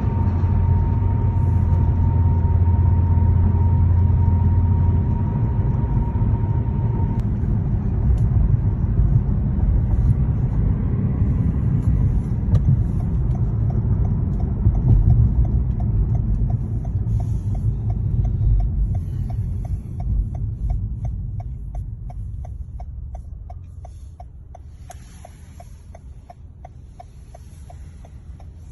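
Low, steady traffic or vehicle rumble that fades about two-thirds of the way through. A fast, even ticking, about two to three a second, joins it for the last third.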